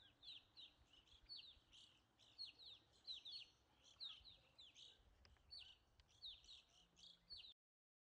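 Black-capped chickadee calling: faint, short, high chirps in small clusters, repeated every half second or so, that cut off suddenly near the end.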